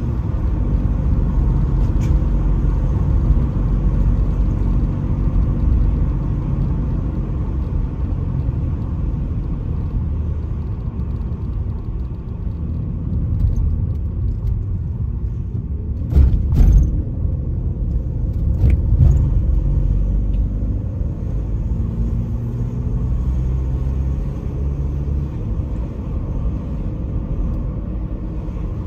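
Car driving at low speed, heard from inside the cabin: a steady low rumble of engine and tyres on the road. A few brief knocks come about halfway through.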